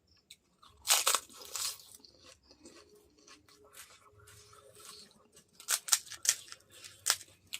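Crisp fried golgappa (pani puri) shells crunching as they are bitten and chewed. There are loud crunches about a second in and a quick run of them near the end, with quieter chewing between.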